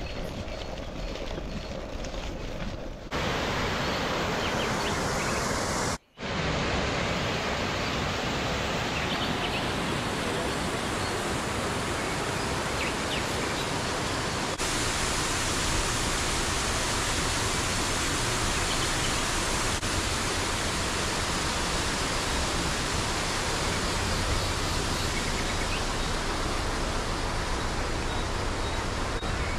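For the first three seconds, light clicking and rattling from a folding bike ridden along a path. Then a steady, loud rushing noise.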